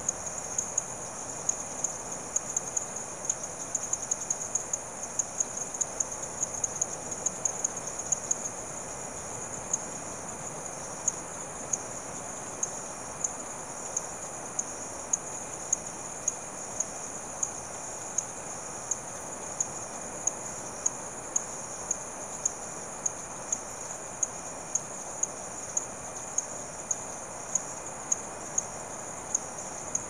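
Evening chorus of insects and frogs: a steady, high-pitched insect trill over a softer, lower chorus. A sharp call repeats about every two-thirds of a second, more crowded and irregular in the first several seconds.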